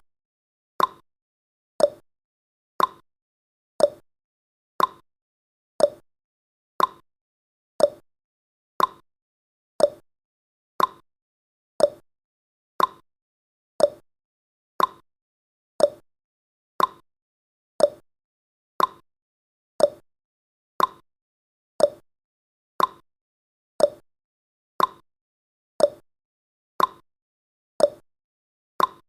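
Countdown timer's clock-tick sound effect ticking steadily, one short sharp tick each second.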